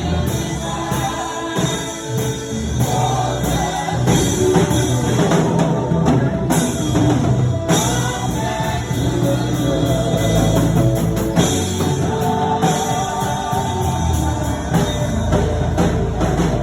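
Gospel praise music with singing over a drum kit and a steady beat.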